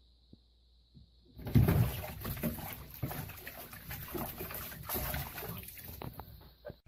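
A cat drops off a bathtub edge into the water about a second and a half in: a sudden loud splash, then several seconds of splashing and scrambling as it tries to climb out, dying down near the end.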